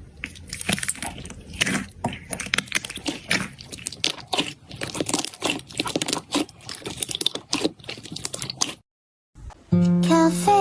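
Slime being squeezed and worked by hand, giving a dense run of irregular crackles and pops. It cuts off about nine seconds in, and music starts near the end.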